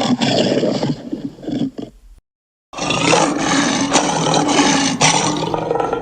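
Tyrannosaurus rex roar sound effect: one rough, deep roar trails off about two seconds in, then after a moment of dead silence a second long roar starts just before the three-second mark.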